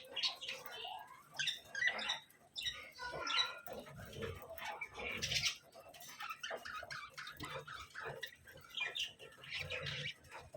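Budgerigars chattering: a busy run of short chirps and scratchy calls, with one louder call about five seconds in.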